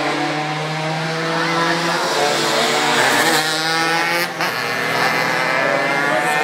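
Small two-stroke Tomos moped racing engines revving hard as several machines come up to and through a corner, their pitch rising and shifting with the throttle.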